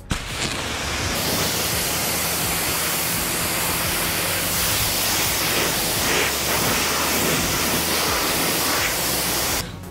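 Pressure-washer wand spraying water onto a car's paintwork, rinsing off snow-foam pre-wash: a steady hiss of water spray that starts right away and stops just before the end.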